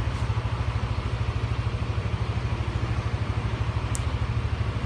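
Yamaha NMAX scooter's single-cylinder four-stroke engine idling steadily, with an even fast pulse. A single light click about four seconds in.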